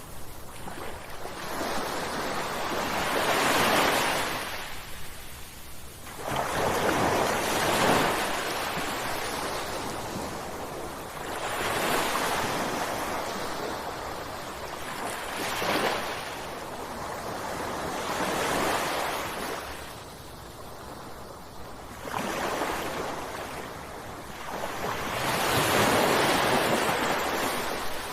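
Ocean waves breaking on a shore, each surge of surf rising and falling away, about every three to four seconds.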